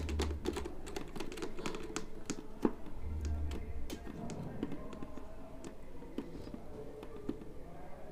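Quick small plastic clicks and taps as an action camera's clear waterproof housing is fitted onto a plastic helmet mount and its thumbscrew done up by hand. The clicks are busiest in the first half, then come more sparsely, with a few soft handling thumps.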